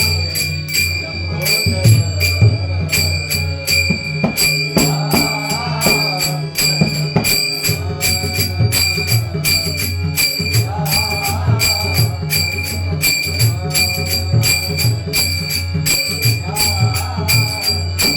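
Bhajan music: small brass hand cymbals (taal) clashed in a fast, steady rhythm with a drum and a low sustained drone. A melodic line rises and falls every few seconds.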